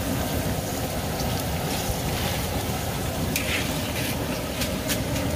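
Hot oil sizzling steadily in a wok as shrimp chips fry and puff, with a few sharp clicks in the second half.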